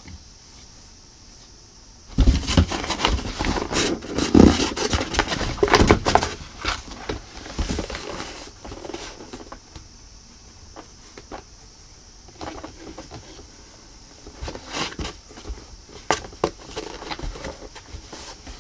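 Cat scrabbling in a cardboard box, claws scratching and paws knocking on the cardboard as it bats at a wand toy. A dense flurry of scratches starts about two seconds in and lasts several seconds, then shorter bursts come near the end.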